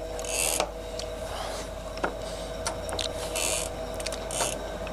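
Hydraulic pump of a Jones & Shipman 1311 cylindrical grinder running with a steady hum. Several short hissing bursts and a few light clicks come over it.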